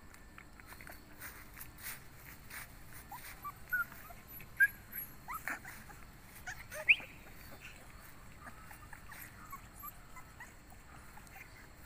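Month-old Bắc Hà puppies whimpering: scattered short, high squeaky whines, the loudest about seven seconds in.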